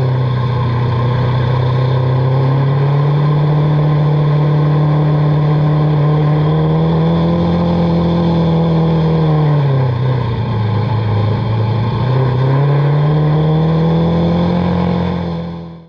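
Autocross race car engine running hard at high revs. Its pitch holds and slowly rises, dips down about ten seconds in, then climbs again, and the sound cuts off suddenly at the end.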